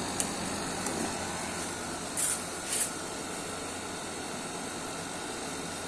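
Window air conditioner running steadily, fan and compressor, freshly recharged with R410a after a leak repair and cooling with a temperature drop of nearly 17 degrees. Two short hissing bursts a little over two seconds in.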